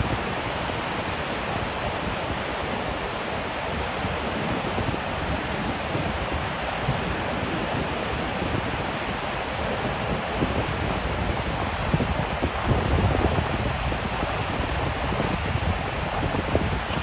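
Heavy rain falling steadily, a dense even hiss, getting a little louder about three-quarters of the way through.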